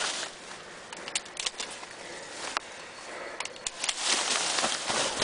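Rustling and brushing through dense stands of tall cattails, with a few sharp clicks and knocks scattered through it.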